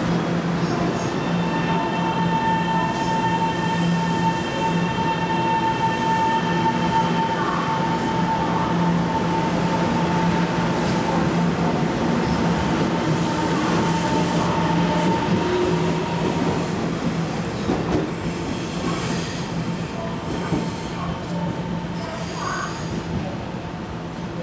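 Taiwan Railways EMU700 electric multiple unit pulling out and running past, with a steady electric whine and the rumble of its wheels on the rails. In the last third come short high-pitched wheel squeals as it moves away, fading near the end.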